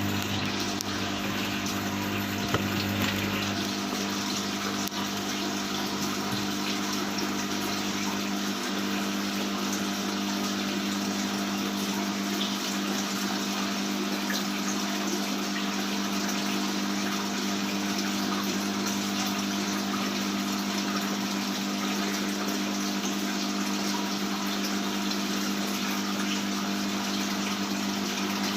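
Aquarium pump running with a steady rush of flowing water and a constant low hum; a deeper part of the hum stops a few seconds in.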